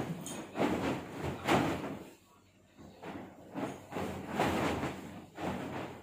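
A large white bed sheet being flapped, shaken out and swept over a mattress: several swishing, rustling bursts of fabric, with a short lull in the middle.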